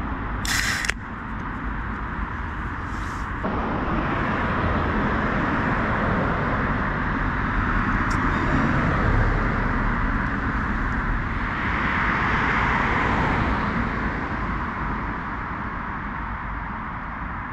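A beer can's ring-pull cracked open with a short hiss just under a second in, then steady road traffic noise that swells in the middle as vehicles pass.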